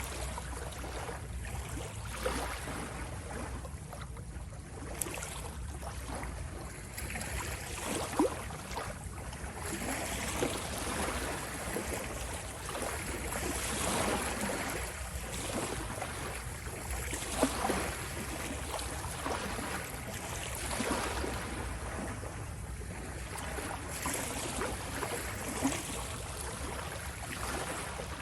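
Ocean waves washing in and out, the wash swelling and easing every few seconds over a steady low rumble.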